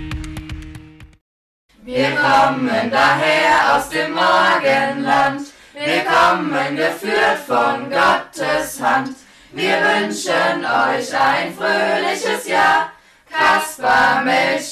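Star singers singing a song together, unaccompanied, in phrases with short breaths between them; it starts after a music track fades out and a short silence about a second and a half in.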